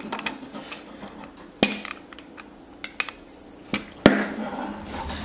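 Toy rolling pins knocking and clicking together as a capuchin monkey handles them: a few sharp clacks, the loudest about one and a half seconds in and again about four seconds in, with lighter ticks between.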